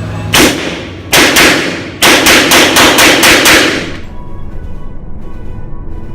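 Glock G22 .40 S&W semi-automatic pistol firing: a single shot, a quick pair, then a rapid string of about nine shots at roughly five a second that stops about four seconds in.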